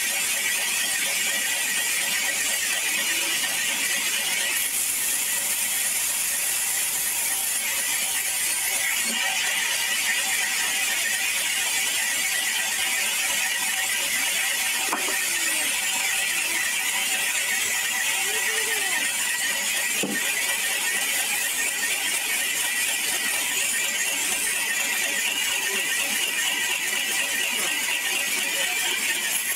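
Sawmill band saw ripping a log lengthwise: a steady, loud, high-pitched sound of the blade cutting through the wood.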